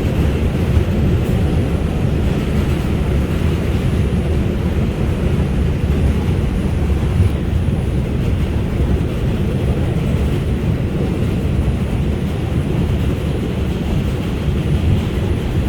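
Steady low rumble of an R142 subway train running at speed, heard from inside the car: wheels on rails and running gear, unbroken and even.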